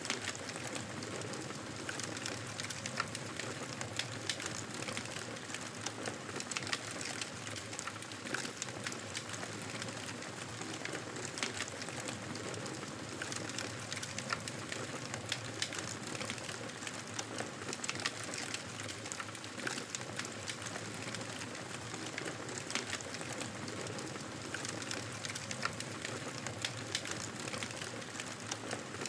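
Campfire crackling steadily: frequent irregular pops and snaps over a soft continuous rush of burning wood.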